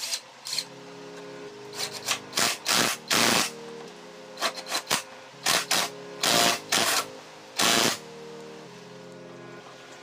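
Honda Click 150i front fork tube rubbing and scraping as it is pushed and twisted up into its clamps by hand: about ten short rasping bursts at uneven intervals, over faint background music.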